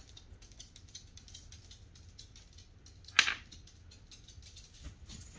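Small plastic toy figures and cars faintly clicking and tapping as a child handles them on a wooden board, with one louder click about three seconds in.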